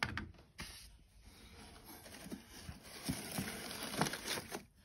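Old paper letters and envelopes rustling as they are handled in a wooden trunk, with a few soft knocks of objects being moved.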